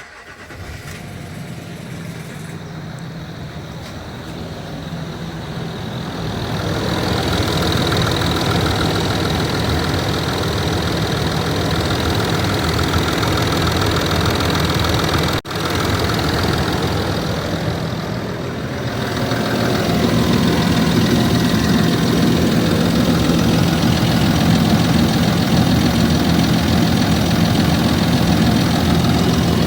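Land Rover Discovery 3's 2.7 TDV6 V6 diesel running from a cold start with a knocking noise. It grows louder about seven seconds in and dips briefly twice around the middle.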